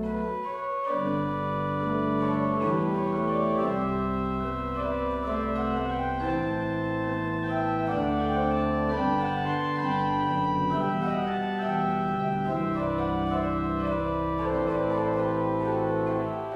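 Pipe organ playing slow, sustained chords that change every second or so over deep bass notes, with a brief break in the sound about half a second in.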